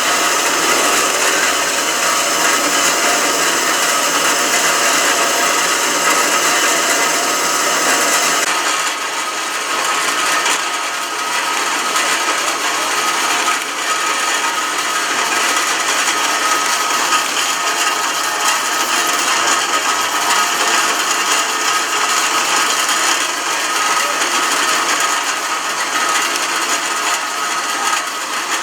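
Small electric drive and pump motors of radio-controlled model construction machines whining and grinding steadily as they work. A high hissing part stops about eight seconds in, and the whine carries on.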